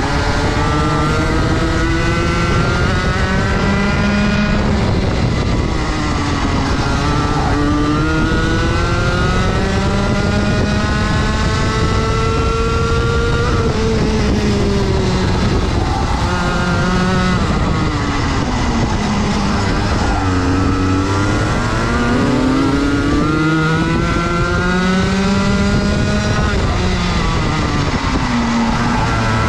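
Rotax Max 125 cc two-stroke kart engine at racing speed, recorded on board: the revs climb for several seconds along each straight and fall away into the corners, four or five times over.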